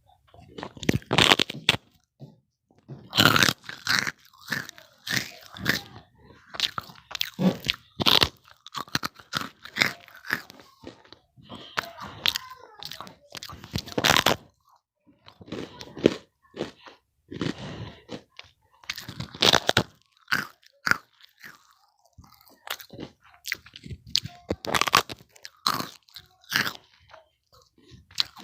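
Crunchy puffed rice crackers being bitten and chewed, with irregular loud crunches every second or so.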